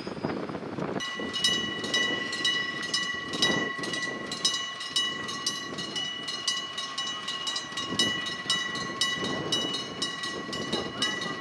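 Japanese railway level-crossing warning bell starts about a second in and keeps dinging in a fast, even rhythm: the crossing is warning of an approaching train. Beneath it runs a low rumble that swells and fades.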